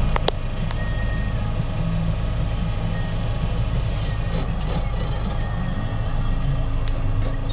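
Steady low drone of a heavy farm vehicle's engine heard from inside its cab, with a couple of sharp clicks right at the start.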